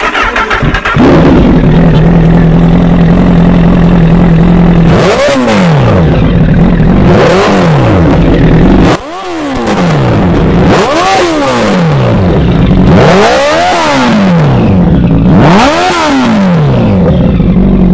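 Honda CBR1000RR inline-four with an SC Project exhaust fires up, idles steadily, then is blipped six times, each rev rising quickly and falling back to idle.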